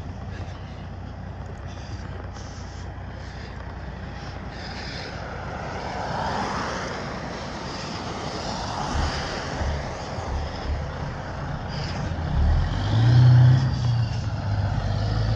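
Diesel engine of a tractor-trailer dump truck pulling out and making a wide turn close by. Its low rumble grows steadily louder and is loudest in the last few seconds.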